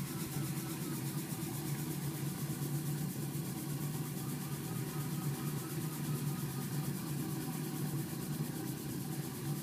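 Copper aeolipile (Hero's steam engine) spinning on its pivot above a gas burner flame: a steady hiss from the escaping steam jets and the burner, over a low hum.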